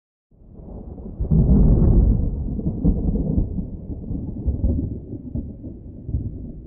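A deep rumbling boom that swells over about a second and then slowly dies away.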